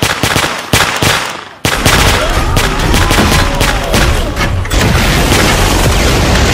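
Dubbed-in movie gunfire sound effects. There are two single heavy shots in the first second, each with a fading tail. About two seconds in, a continuous stretch of rapid automatic fire begins over a deep rumble.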